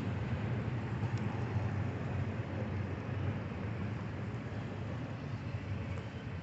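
Freight train's diesel locomotives rumbling as the train passes, a steady low drone that eases off slightly toward the end.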